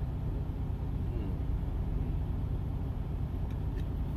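Steady low rumble of a truck's engine running, heard from inside the cab.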